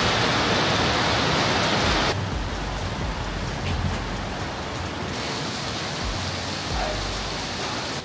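Heavy rain pouring onto a plastic rooftop canopy: a loud, even hiss that drops off abruptly about two seconds in to quieter, steady rain.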